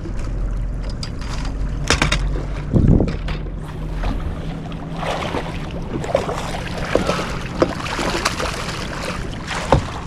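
Sounds aboard a bass boat on the water: a steady low hum with wind on the microphone, broken by several sharp knocks and clatters on the boat.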